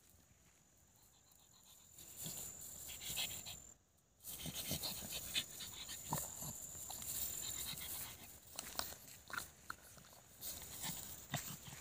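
Pug nosing and digging in dry grass: its sniffing and breathing close up, with irregular rustles and scrapes of dry grass under its face and paws. The sound drops out briefly about four seconds in.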